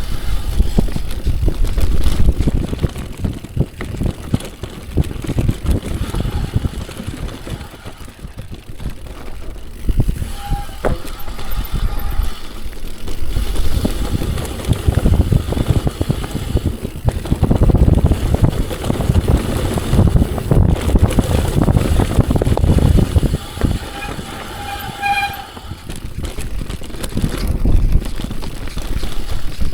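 Mountain bike descending a rough, root-strewn downhill trail: a constant uneven rumble and rattle from the tyres, frame and drivetrain, mixed with wind buffeting the camera microphone. Two short squeals break through, about ten seconds in and again near the end.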